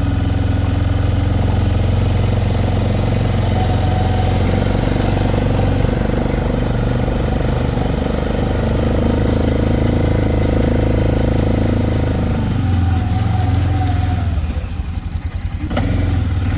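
Four-wheeler (ATV) engine idling steadily after its warm-up. The sound drops briefly near the end, then picks up again.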